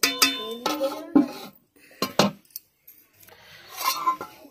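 Metal cookware clattering: a steel spatula and lid knocking against an aluminium cooking pot. Several ringing clanks in the first second and a half, two more strikes about two seconds in, then softer clatter near the end.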